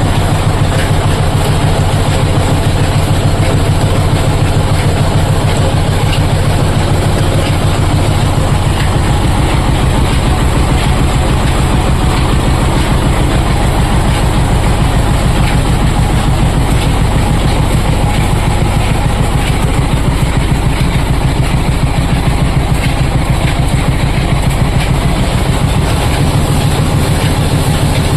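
Oil expeller machine running steadily and loudly, with a fast, even mechanical pulse.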